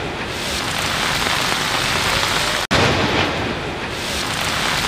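Heavy rain falling, a dense, even hiss. It cuts out for an instant about two and a half seconds in and starts again.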